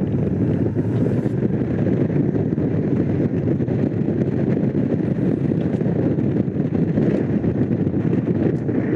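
Honda CX500 motorcycle underway at a steady speed: heavy wind rush on the microphone over the steady running of its V-twin engine.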